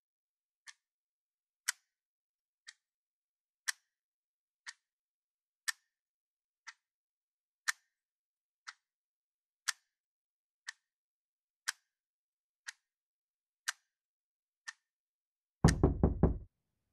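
A clock ticking about once a second, the ticks alternating loud and soft. Near the end comes a quick, louder run of four or five knocks on a door.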